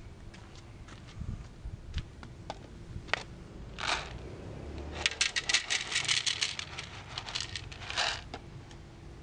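Dry cat kibble poured out onto a metal tray: a dense rattle of small hard pellets for about three seconds in the second half, after a few scattered clicks.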